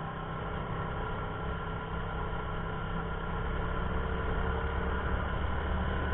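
Motorcycle engine running steadily under load as it climbs a steep road, with a low rumble beneath, growing slightly louder toward the end.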